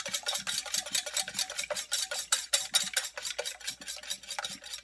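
Wire whisk beating raw eggs in a small stainless steel saucepan: rapid, even clicking strokes of the wires against the metal.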